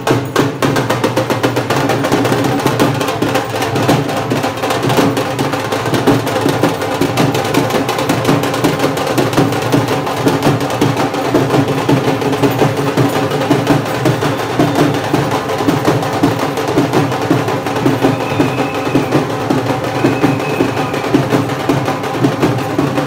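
Fast, continuous dhol drumming.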